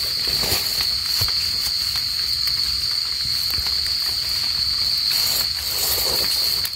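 A steady, high-pitched insect chorus trilling without a break, with a few faint scrapes of a metal trowel digging in soil.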